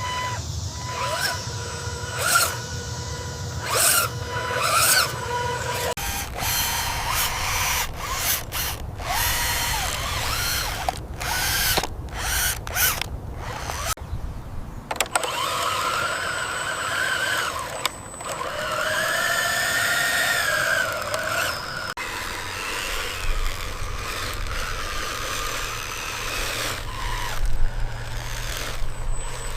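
Small electric gear motors of remote-control construction vehicles whining as they run. The pitch rises, holds and falls back several times, with clicking and scraping in between.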